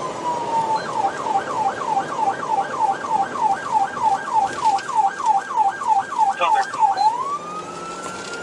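Sheriff's patrol car electronic siren heard from inside the cab. A falling wail switches to a fast yelp, about three and a half sweeps a second, then changes back to a slow rising wail about seven seconds in.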